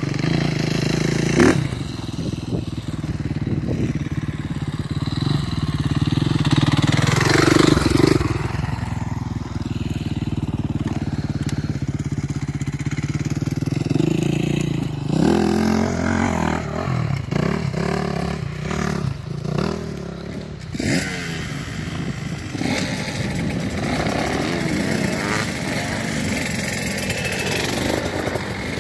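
Small dirt bike engines running and revving, the nearest bike idling close by with its pitch swelling up and down a few times.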